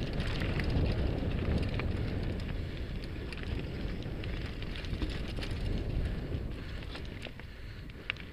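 Mountain bike riding over a rocky dirt singletrack, heard from the action camera: wind rumble on the microphone and tyres on loose gravel, with scattered sharp clicks and rattles from stones and the bike.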